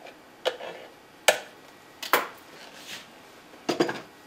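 A knife knocking and scraping inside a blender jar, separate sharp taps about a second apart, as the water sitting on top is worked down into the thick blend with the motor off.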